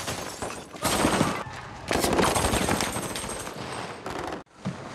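Automatic gunfire: rapid bursts of shots with a steady crackle between them, louder bursts about a second in and again about two seconds in, briefly cutting out near the end.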